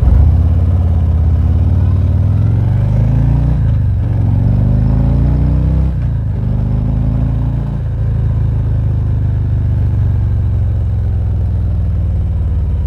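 2019 Harley-Davidson Ultra Limited's V-twin engine pulling away and accelerating through the gears. Its pitch rises three times, with a sudden drop at each shift, then it settles into a steady cruise. It is heard through a lapel mic inside the rider's helmet with the visor up.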